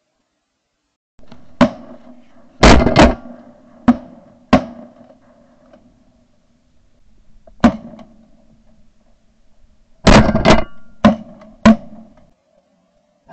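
About a dozen shotgun shots at ducks, coming in three quick strings. Some are very loud and sharp, others fainter.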